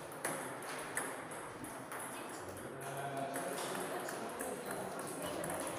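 Celluloid-type table tennis ball clicking sharply a few times, about a second apart, in a hall, with a murmur of voices behind.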